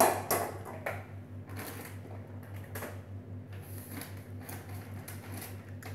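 Kitchen things being handled and set down on a counter: a loud knock at the start, then scattered light clicks and knocks over a steady low hum.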